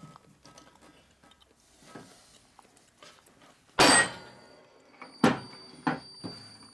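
Heavy hammer striking a Harley-Davidson flywheel assembly on a truing stand: one hard blow about four seconds in, then another hard blow and two lighter knocks near the end, the steel flywheels ringing with a high tone after the blows. The blows shift the flywheels to true the crankshaft.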